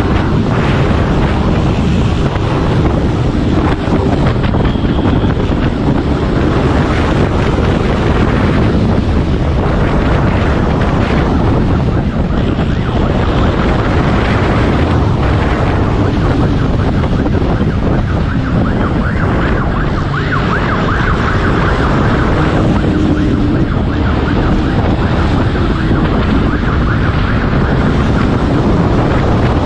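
Heavy wind buffeting on the microphone of a pursuing vehicle moving fast through streets, mixed with the rumble of its running and road noise.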